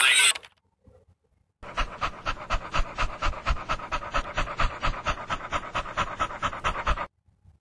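An animal panting rapidly and evenly, about five short breaths a second. It starts about one and a half seconds in and stops abruptly near the end.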